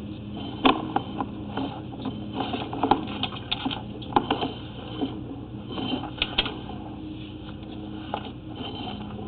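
Irregular clicks and knocks, a few of them sharp, over a steady electrical hum: handling and mechanical noise from a sewer inspection camera rig while the camera is worked along the line.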